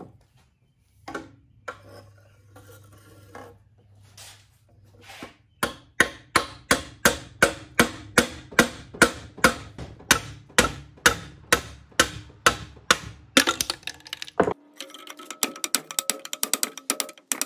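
Hammer blows on a length of PVC pipe run through a Dana 44 axle tube, driving out the old inner axle seal: a steady series of sharp strikes, about two and a half a second, starting about six seconds in. Near the end the strikes turn quicker and lighter, with a ringing note from the housing.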